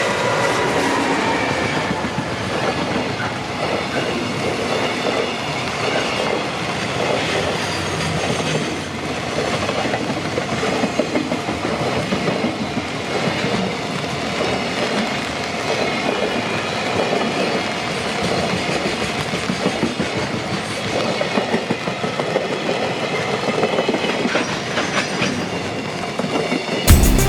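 A JR Freight freight train rolling past, its wagon wheels clattering steadily over the rail joints. Music comes in at the very end.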